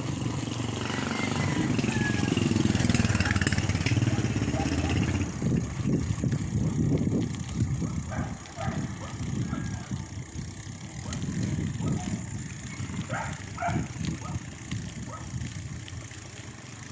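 Wind buffeting the microphone and tyre rumble from a bicycle rolling along a concrete road. A steadier low hum and the loudest stretch come in the first five seconds.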